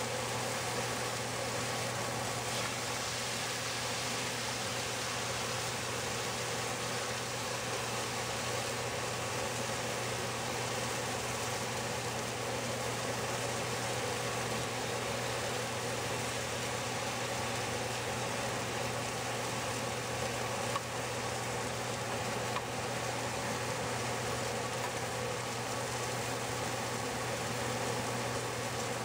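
Rib eye steaks with a balsamic glaze sizzling steadily in a hot frying pan, over a constant low hum. Two faint ticks about two-thirds of the way through.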